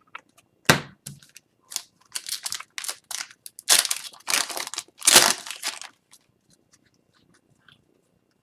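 Crinkling and tearing of a foil hockey card pack wrapper as it is opened and the cards are handled: a sharp snap a little under a second in, then a few seconds of loud rustling before it goes quiet.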